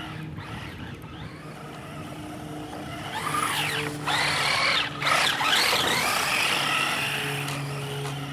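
Traxxas Rally VXL RC car's brushless electric motor whining, its pitch rising and falling repeatedly as it accelerates hard and lets off. The whine peaks about three to six seconds in as the car comes close, with the hiss of its tyres churning through snow.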